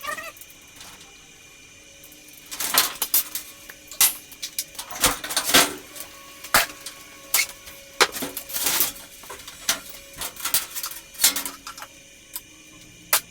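Irregular metal clanks and clinks, a dozen or so, several ringing briefly after the hit: garage door parts and tools being handled and knocked together.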